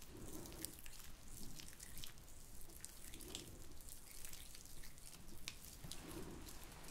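Hands slick with a skin-care product rubbing and pressing close to the microphone: soft, wet squishing with many small crackling ticks.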